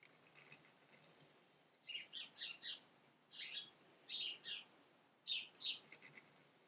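A small bird chirping: four short bursts of two or three quick high notes, a second or so apart.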